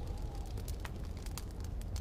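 Wood fire crackling, with frequent sharp pops and snaps, over a steady low rumble of snowstorm wind.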